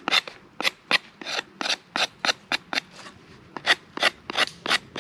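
Rhythmic back-and-forth strokes of a hand tool working wood, about four a second, with a short pause about three seconds in.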